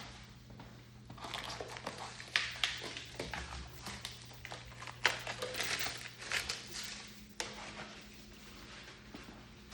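Irregular rustling and crinkling with light clicks and knocks of packaging and plastic being handled, busiest from about one second in until about seven and a half seconds in.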